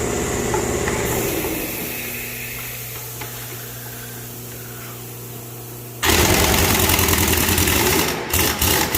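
1-inch pneumatic impact wrench hammering on sprayer lug nuts. It starts suddenly about two-thirds of the way in, after a steady low machine hum, and ends in a few short bursts of the trigger.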